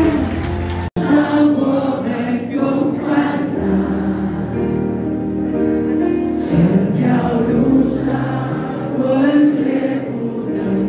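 A congregation singing a Chinese-language worship song, led by a woman's voice on a microphone with band accompaniment. The sound cuts out for an instant about a second in, then the singing carries on.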